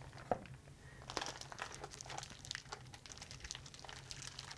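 Plastic zip-top bag of marinated chicken crinkling as it is handled and lifted, a run of faint, irregular crackles.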